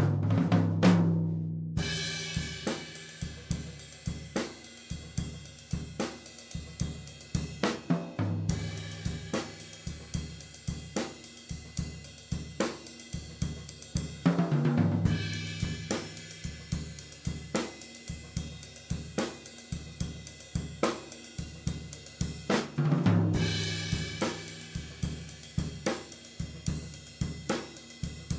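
A drum kit playing a steady beat, with hi-hat and snare strokes a few times a second and a cymbal crash over a low ringing drum note four times.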